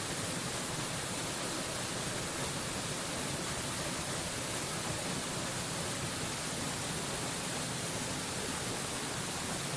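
Waterfall white noise: a steady, unbroken rush of falling water with a strong hiss, holding the same level throughout.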